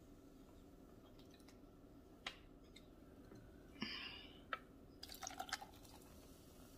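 Zero-calorie soda poured from an aluminium can over ice in a glass: a few faint clicks, a short fizzing hiss about four seconds in, then a quick run of crackling clicks as the soda hits the ice.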